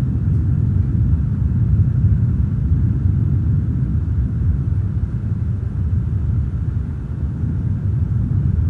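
A steady, deep rumble with nothing else over it.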